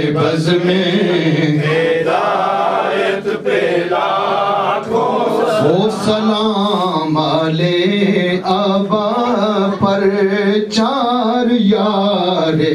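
A man's voice chanting an Urdu devotional salam into a microphone, with no instruments, in long held, wavering phrases.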